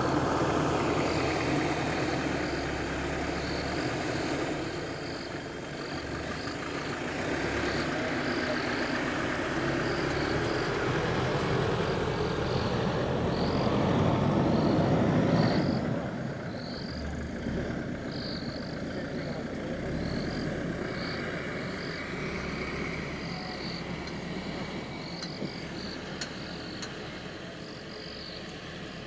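Night chorus of calling frogs and insects, a short call repeating about once a second. Underneath is a louder, even rushing noise that grows a little and then drops away suddenly about sixteen seconds in.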